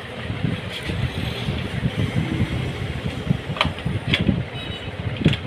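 A phone's cardboard retail box and its accessories being handled, with about three sharp clicks and taps in the second half as the charger and coiled cable are lifted out. Under them runs a steady low rumble.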